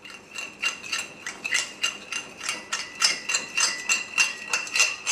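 Metal spoon stirring olive oil and spices in a ceramic plate, clinking against the plate about three times a second, the plate ringing lightly after each tap.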